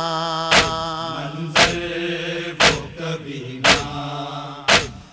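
Noha lament: voices holding a long sung note between lines, kept in time by a sharp slap-like beat about once a second, the matam (chest-beating) rhythm of a noha.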